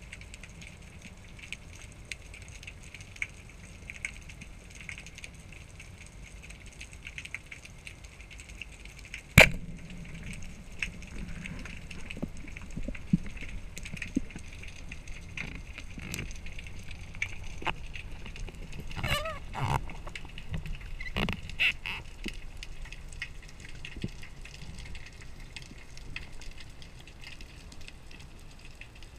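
Underwater recording: a steady low hiss, then one sharp crack about a third of the way in as the Pathos Open Laser 120 band speargun fires, followed by scattered clicks, knocks and a brief squeak as the shaft and line with the speared fish are hauled back.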